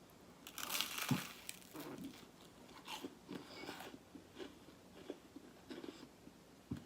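A crunchy bite into crispy garlic bread about a second in, followed by chewing with small, irregular crunches, close to the microphone.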